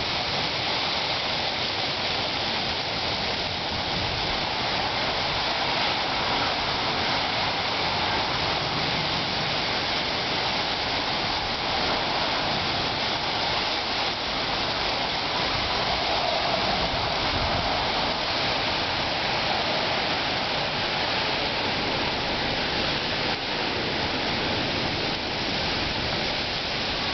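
Steady hiss of sleet falling in a snowstorm, even and unbroken.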